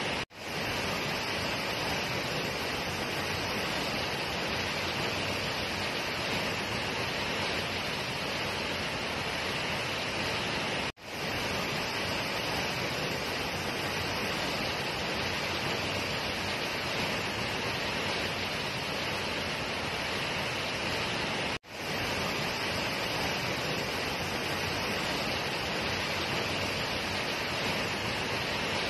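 Waterfall plunging into a pool: a steady, even rush of falling water. The sound cuts out for a split second three times: right at the start, about a third of the way through and about two-thirds of the way through.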